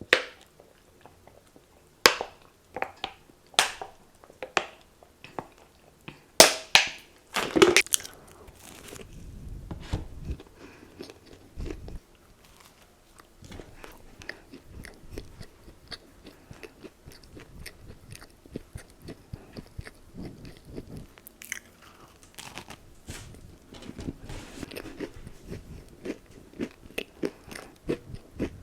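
Close-miked biting into crunchy fried chicken. There are several loud, sharp crunches in the first eight seconds, then steady chewing for the rest of the time.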